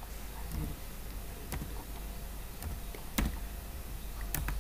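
A few sharp, separate clicks of computer keys as a value is typed in, the loudest about three seconds in, over a steady low hum.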